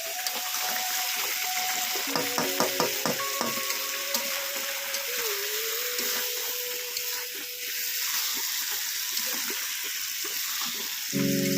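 Chicken curry frying and sizzling in a pan, with a cluster of sharp clicks from a spoon stirring against the pan about two seconds in. Just before the end a louder steady tone of several pitches comes in.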